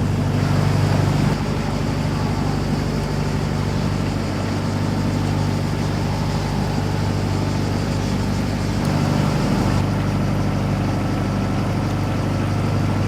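Vehicle engine running steadily, a continuous low hum with a noisy rush over it.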